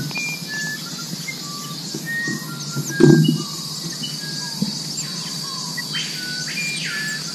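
Amazon forest ambience: a steady high-pitched insect drone with many short whistled calls and chirps over it. A brief thump about three seconds in is the loudest sound.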